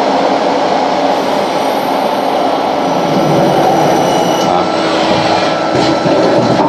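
SNK CNC lathe running, a loud, steady mechanical noise with a thin high-pitched whine from about a second in until about four and a half seconds.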